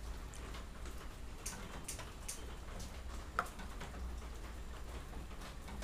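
A spoon clicking and scraping against a small metal bowl of rice while eating: a few light, scattered ticks, with one sharper click about three and a half seconds in.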